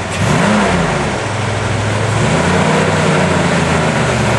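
Jeep CJ7's engine revving under load as it climbs a rock ledge off-road, the revs rising about half a second in, dropping back, then climbing again and holding higher for the second half.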